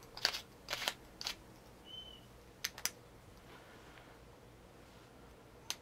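Sharp clicks and taps from a small 9-LED aluminum flashlight being handled and switched on at its tail push-button: three clicks in the first second and a half, a quick pair near three seconds, and one more at the end, with a brief faint squeak about two seconds in.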